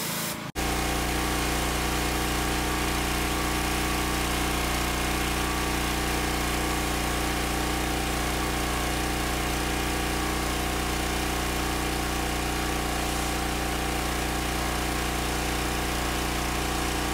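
Engine-driven pressure washer running steadily, with the hiss of its water jet spraying onto a pool-enclosure screen; it cuts in abruptly about half a second in.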